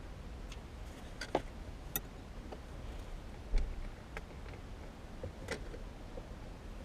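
Scattered light clicks and taps of small screws and plastic console trim being handled and worked loose by hand, with a single dull thump about three and a half seconds in.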